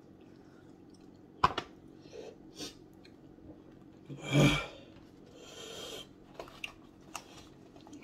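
Close-up eating sounds: crunchy chewing of a fried chicken wing, with scattered sharp clicks and one louder, brief burst about four and a half seconds in.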